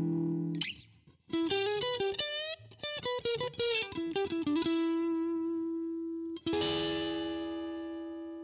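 Electric guitar played through a VOX StompLab IIG's overdriven Gain amp model. A held chord dies away, then comes a quick single-note lick with string bends and a long sustained note. About six and a half seconds in a new chord is struck and left to ring and fade.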